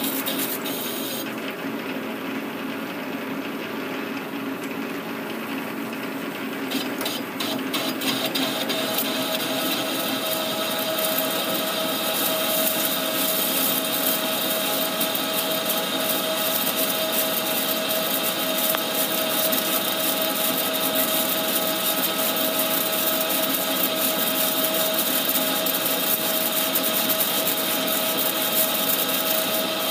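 Metal lathe taking a cut on a large metal hub with a carbide insert tool: steady whining tones from the running machine under a hiss of cutting. The high cutting hiss drops away about a second in, comes back with a few clicks around seven seconds, and runs a little louder from about eight seconds on.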